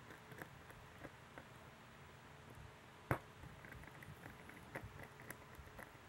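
Faint, scattered small clicks and ticks of a hand screwdriver turning a small mounting screw into a bracket. One sharper click comes about three seconds in, and a quick run of small ticks follows.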